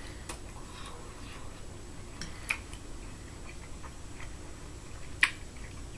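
A person quietly eating a mouthful of rice: three sharp, isolated clicks of mouth or fork over faint room noise, the loudest near the end.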